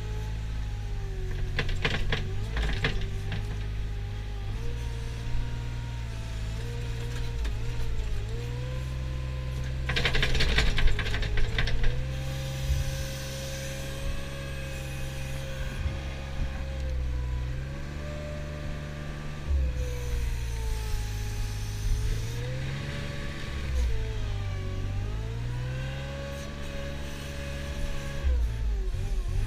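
Diesel engine of a Mustang compact wheel loader working, its pitch rising and falling again and again as it is revved for driving and bucket work. Rattling clatter breaks in about two seconds in and again around ten seconds in.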